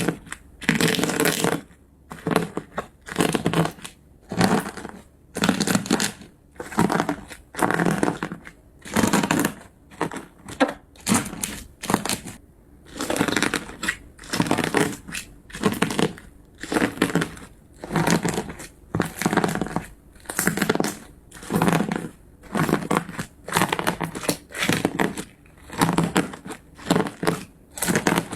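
Slime being squeezed and pressed by hand, a noisy squishing burst about once a second, with short quieter gaps between.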